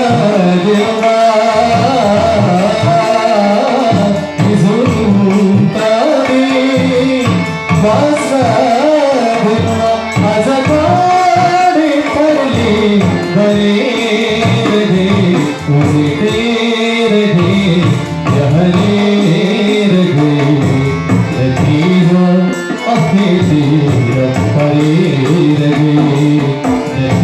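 A man singing a Nepali song over instrumental accompaniment with hand drums.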